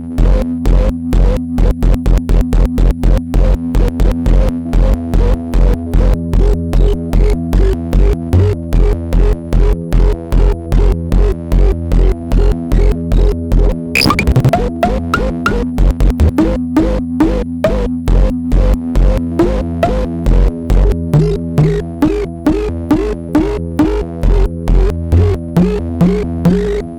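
Bastl Kastle v1.5 and Hikari Monos synthesizers playing together, clock-synced: a fast, even electronic pulse over a deep bass, with a short burst of noise about halfway through and short pitched blips in the second half.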